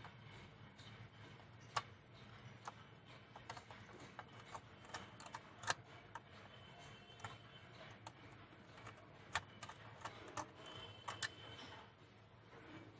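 Faint, irregular small clicks and taps of a Sony Handycam camcorder's plastic housing and parts being handled and prised open during disassembly.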